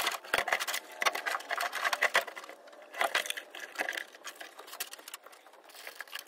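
Rapid clicking and rattling of car wiring being handled and zip ties pulled tight, in two dense runs about a second and three seconds in.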